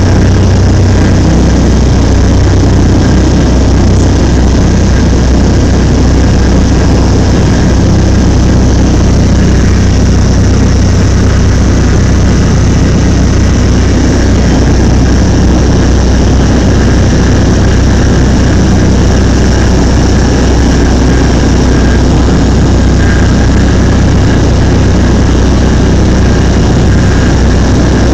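Cessna Grand Caravan's single Pratt & Whitney PT6A turboprop and propeller at takeoff power, heard from inside the cabin. It is a loud, steady drone with a strong low hum, running through the takeoff roll and into the climb.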